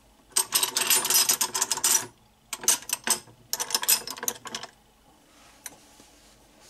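Small porcelain dishes and spoons clinking and rattling against each other as a stack is handled and set in place on a shelf, in three bursts of rapid clatter.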